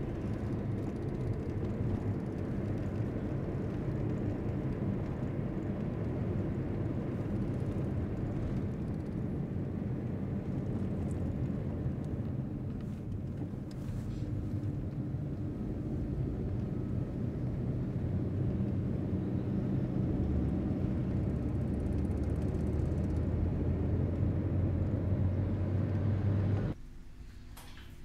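Car engine and road noise heard from inside the cabin while driving, a steady low rumble. A deeper engine hum swells about two-thirds of the way in, then the sound cuts off abruptly near the end.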